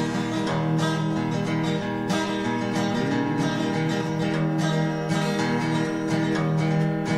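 Instrumental country music led by a strummed acoustic guitar in a steady rhythm: the intro to a sung country song.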